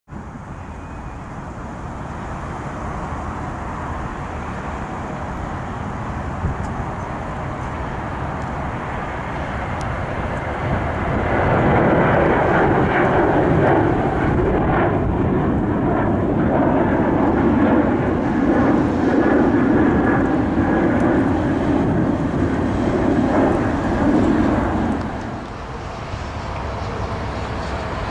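Airliner flying past close by, its engine roar swelling about eleven seconds in, staying loud for over ten seconds, then dropping off sharply a few seconds before the end, over a steady low airport rumble.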